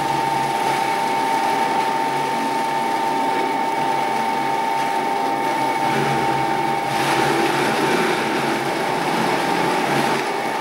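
Vitamix E310 Explorian high-performance blender running, its motor chopping a full jar of tough leafy greens, celery and fruit into a smoothie. It gives a steady high whine over a dense churning noise that turns brighter and harsher about seven seconds in.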